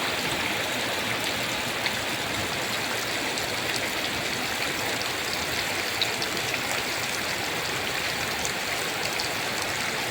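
Heavy rain falling with running runoff water, a steady rushing hiss with scattered drip ticks.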